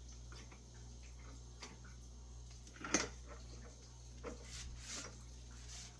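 Scattered light clicks and knocks of a clamp and tools being handled, the sharpest about three seconds in, over a steady low hum.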